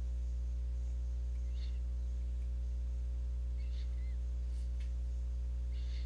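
Steady low electrical hum with a ladder of overtones, holding at one level, with a few faint brief sounds over it.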